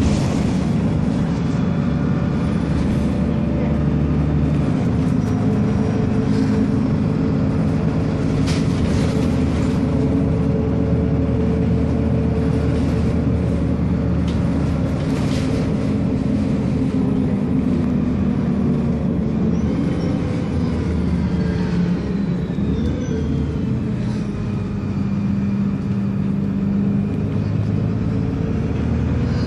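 Alexander Dennis Enviro300 single-deck bus running at road speed, heard from a passenger seat inside the saloon: the diesel engine's steady note over tyre and road noise, with occasional small knocks and rattles. About two-thirds through, the engine note falls and then climbs again as the bus eases off and pulls on.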